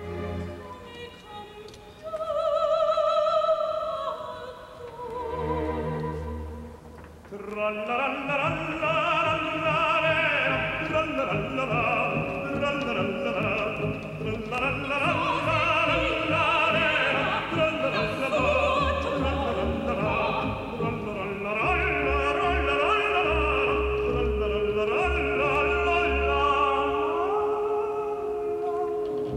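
An orchestra plays for a few seconds, then an operatic tenor comes in about seven seconds in and sings in Italian over the orchestra with a wide vibrato. Near the end a single note is held underneath the voice.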